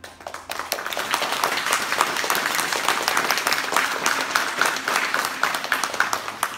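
Audience applause, building quickly in the first second into steady, dense clapping.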